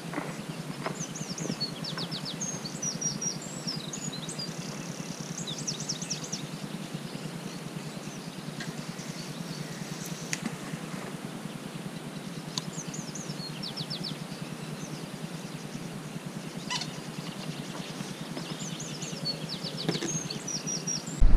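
A songbird singing three spells of quick high chirps and trills, over a steady low hum, with a few short clicks.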